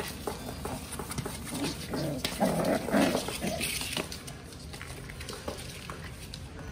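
Young puppies vocalising as they wrestle, short pitched whines and yips that are loudest about two to three seconds in, with light scratching and tapping of paws and claws on cardboard.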